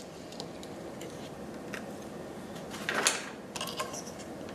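Thin clear plastic acetate sheets being handled and lifted off a stencil, with a few light ticks and one louder rustle about three seconds in, over a steady hiss.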